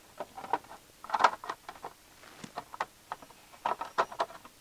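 Glove box liner being worked into the dash opening by hand: a run of irregular clicks, taps and knocks as the panel bumps and scrapes against the dash edges, busiest about a second in and again near the end.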